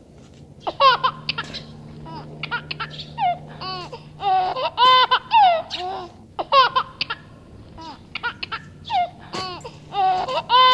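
Laughing: a run of short, high-pitched giggles starting about a second in.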